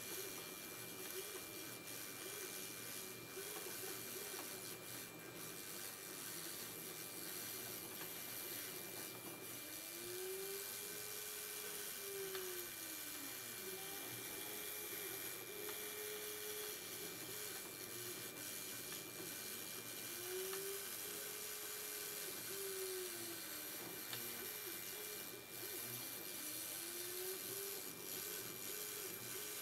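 OpenBuilds C-beam CNC router engraving. The spindle runs with a steady high whine over a hiss of cutting, while the motors driving the axes hum in pitches that rise and fall again and again as the gantry speeds up and slows down between moves.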